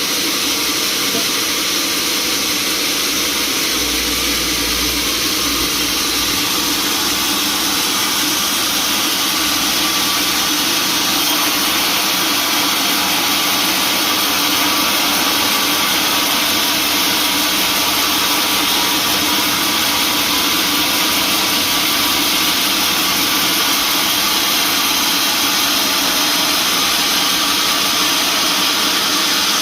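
Sawmill machinery running with a loud, steady mechanical noise that does not let up.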